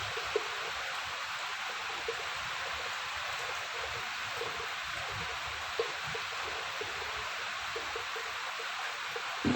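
Steady rain, an even hiss with scattered drops plopping and a few sharper drip ticks.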